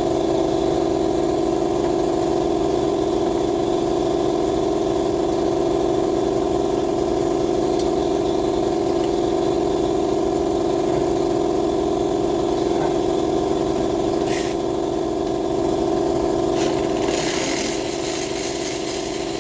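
Steady mechanical hum of a running motor, with a brief hiss about two-thirds of the way through and a longer hiss near the end.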